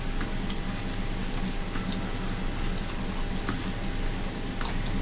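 Rice being mixed with curry by hand on a plate: soft wet squishes and scattered small clicks from the fingers in the food, over a steady low room hum.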